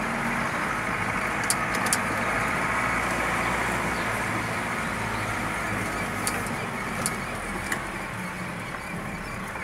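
Car engine and road noise heard from inside the cabin as the car drives slowly over a sandy dirt street. A few short, sharp clicks or rattles are heard along the way.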